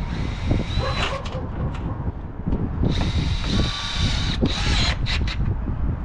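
Cordless drill driving screws into corrugated metal roofing: a short run of the motor about a second in, a longer steady whine of about a second and a half near the middle, then a few quick bursts. Wind buffets the microphone throughout as a low rumble.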